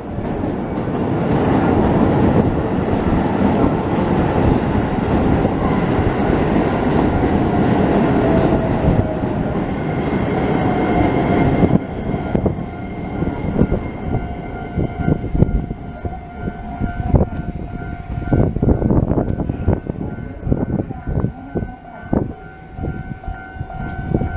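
A Keisei Kanamachi Line train passes over a level crossing with a loud rail rumble that cuts off about halfway. The crossing's electronic warning bell goes on ringing in a steady repeating beat after the train has gone.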